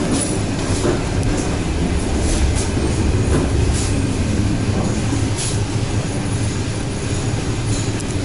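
Inside an ED4MK electric multiple-unit carriage on the move: a steady low rumble of wheels on rails and running gear, with a few brief high-pitched squeaks from the wheels and track.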